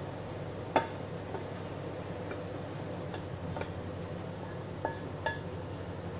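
A metal spatula scraping and knocking against a frying pan as food is tipped out of it, giving several short clinks, the loudest about a second in, over a steady low hum.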